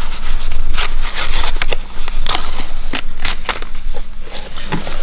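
Used paper oil-filter element being cut open with a blade and its oil-soaked pleats pulled apart by hand: an irregular run of short, sharp snips, cracks and rips.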